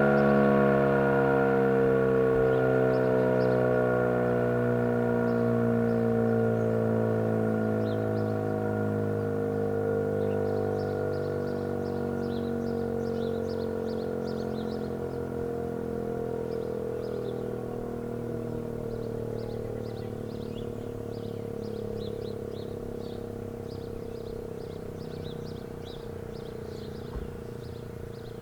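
ACA P-10 outdoor warning siren winding down at the end of its test, its tone sliding slowly lower and fading as the rotor coasts to a stop.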